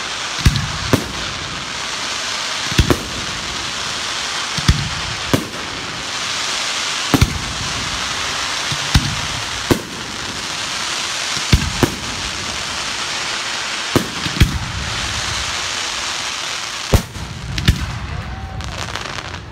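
Aerial firework shells bursting in the sky, sharp bangs about once a second, sometimes in quick pairs, over a continuous hiss from the burning stars and comet tails.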